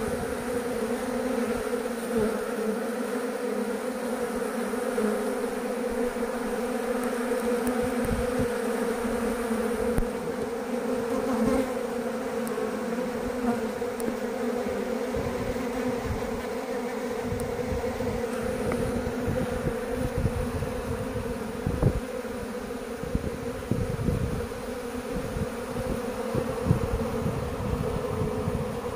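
Many honeybees flying around a hive entrance: a steady, dense buzz of wings, with soft low bumps on the microphone, more frequent in the second half.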